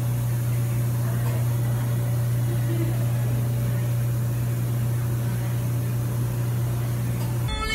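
Whole-body cryotherapy chamber running, a steady hum with a hiss over it as the cold nitrogen vapour is fed in around the occupant. It cuts off abruptly near the end.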